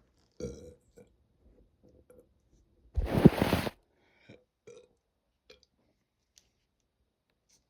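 A person burping: one loud burp lasting just under a second about three seconds in, after a shorter, softer sound near the start, followed by a few small mouth clicks.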